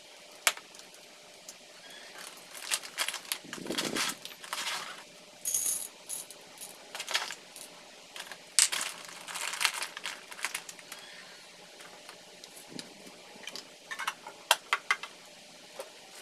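Scattered small metal clinks, taps and brief rustles of coffee-brewing gear being handled, among them a spoon stirring in a stainless-steel Vietnamese phin filter. Near the end comes a run of several quick clinks.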